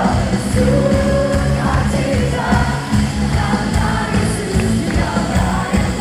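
Live worship band music with singers, bass-heavy and loud, recorded on a phone's microphone.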